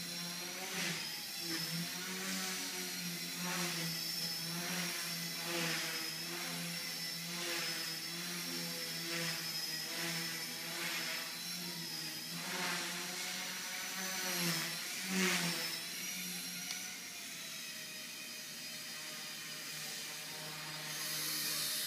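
Axe 100 SS micro RC helicopter in flight: its brushless motor and rotor blades give a high buzzing whine that rises and falls in pitch with repeated surges, bending most about two thirds of the way through, then holding steadier near the end.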